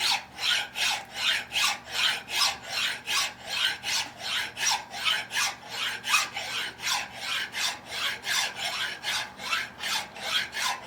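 Hand file rasping across the edge of a part to round it into a radius, in even back-and-forth strokes about three a second, worked shoeshine-style.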